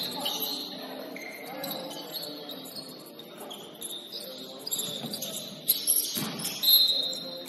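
Sounds of a basketball game on a gym court: the ball bouncing, short high squeaks from shoes on the floor, and players' voices in the background. The thumps come loudest about six seconds in, with a longer squeak just after.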